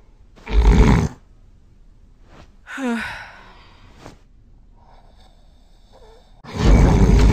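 A person snoring loudly: a harsh snore about half a second in, a short gasping breath around three seconds in, then another long, loud snore starting near the end.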